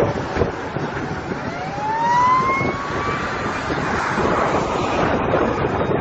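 Wind buffeting the microphone in gusts. Partway through, a single tone rises and then levels off for about two seconds.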